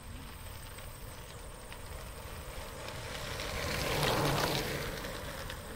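Bicycle passing on a dirt and gravel road: tyre crunch grows louder, peaks about four seconds in as it goes by, then fades.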